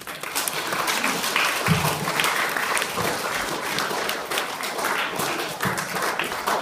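An audience of schoolchildren and adults applauding, many hands clapping together, starting suddenly and keeping up steadily.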